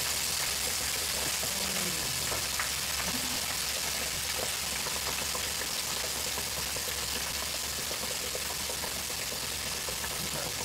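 Pork chops deep-frying in an electric deep fryer, the hot oil bubbling and sizzling steadily.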